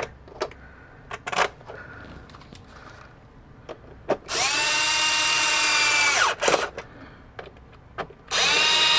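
Small cordless screwdriver driving T15 screws into an instrument cluster housing: light handling clicks, then a steady motor whine for about two seconds that drops in pitch as it stops. A second run starts near the end.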